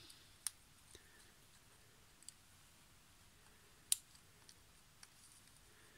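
A few sparse, faint plastic clicks as the plastic interior insert is pressed and fitted by hand into a small die-cast toy car body, the loudest about four seconds in.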